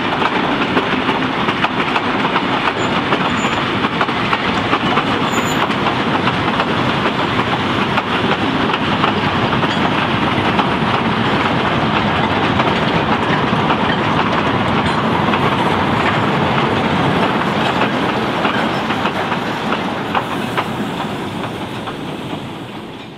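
Vintage railway passenger carriages and a guard's van rolling past, their wheels clattering over the rail joints. The sound holds steady, then fades over the last few seconds as the end of the train draws away.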